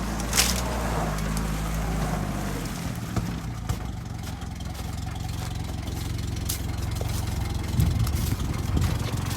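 UAZ off-roader's engine revving, its pitch shifting, then settling to a steady idle about three seconds in as the vehicle sits stuck in the stream. A few sharp knocks are heard on top.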